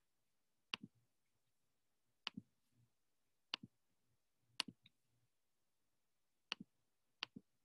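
Six faint, sharp clicks a second or two apart, each a quick double tick, from clicking with a computer pointer on a laptop to open a PowerPoint file; otherwise near silence.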